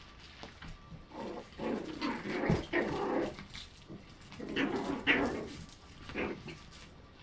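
An adult dog and her puppy play-fighting, with rough growling noises. The noises come in two bouts, starting about a second in and again at about four and a half seconds, with a short one near the end.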